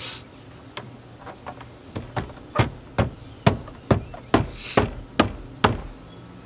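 Door trim piece being knocked into place: a few light taps, then about eight sharp blows at roughly two a second, seating its clips into the door.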